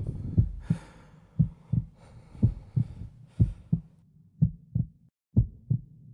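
Heartbeat sound effect: paired low thumps in a steady lub-dub, about one beat a second, with a faint hiss during the first half.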